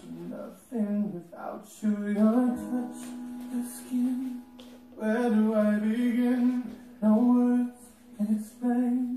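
A song playing: a solo singing voice in phrases, with long held notes and short breaks between lines.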